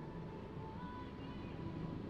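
Steady low road and engine rumble inside a Toyota Calya's cabin while driving, under faint background music carrying a thin wavering melody.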